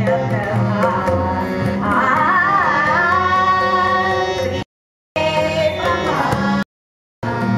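A woman singing a Marathi natya-sangeet stage song with melismatic runs, over tabla and sustained melodic accompaniment. The audio drops out completely twice in the second half.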